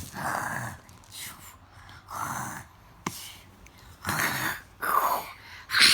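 A child imitating loud snoring: a series of short, breathy snorting bursts, about six in all, with a pause in the middle.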